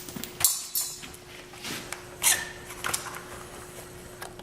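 A sheet of paper crinkling and tearing as it is sliced with a freshly whetstone-sharpened knife in a paper-cut sharpness test. There are a few short rustles, the loudest about half a second in. The blade rips the paper rather than slicing it cleanly.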